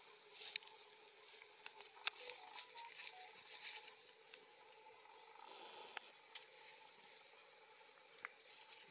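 Faint rustling and crackling of leaves and thin twigs as macaques move and grip a branch, with a few sharp clicks, the loudest about two seconds in and about six seconds in.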